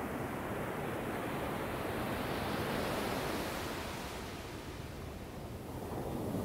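Ocean surf: small waves breaking and washing up a sandy beach in a steady rush. The rush eases off for a moment a little past halfway, then swells again as the next wave comes in.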